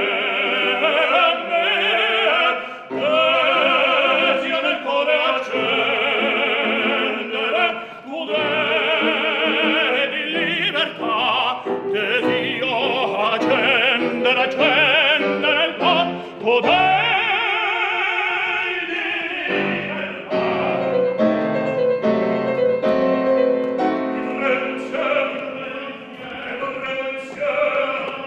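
Operatic solo singing with a wide vibrato on long held notes, accompanied by piano.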